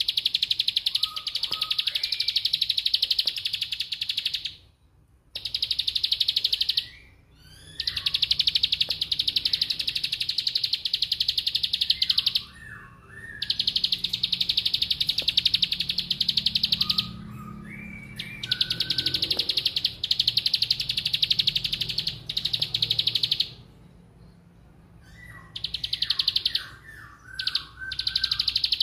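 Caged prinia (ciblek sawah) singing in 'ngebren' style: long runs of a very fast, high buzzing trill, each lasting several seconds, broken by short pauses with a few lower chirps.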